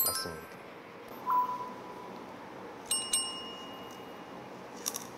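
A bright bell ding sound effect marking a correct answer, followed by two more short chime effects about a second and three seconds in. Each one rings briefly and fades.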